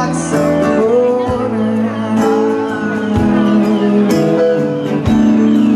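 Live band music: a man singing long held notes over keyboard chords, with a drum beat and cymbals.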